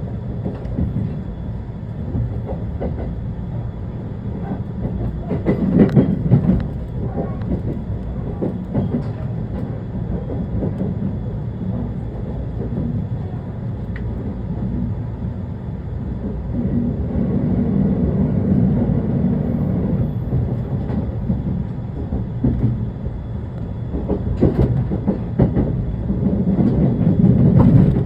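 Shonan-Shinjuku Line rapid electric train running at speed: a steady rumble of wheels on rail with clickety-clack, swelling louder about six seconds in, again around eighteen seconds and near the end.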